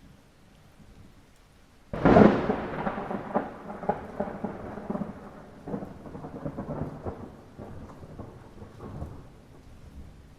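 Light rain, then a sudden close thunderclap about two seconds in that rumbles and crackles away over the next several seconds.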